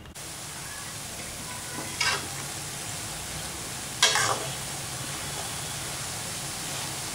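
Drops of gram-flour batter (boondi) frying in hot oil in a steel pot, a steady sizzle. A metal ladle knocks against the pot about two seconds in and again, louder, about four seconds in.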